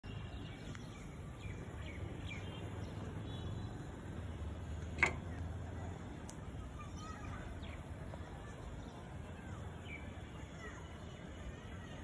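Faint bird calls, short chirps falling in pitch, scattered over a steady low background rumble, with one sharp click about five seconds in.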